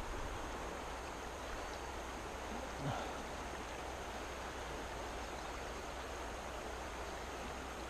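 Steady rushing of creek water running high, an even hiss, with one short faint sound about three seconds in.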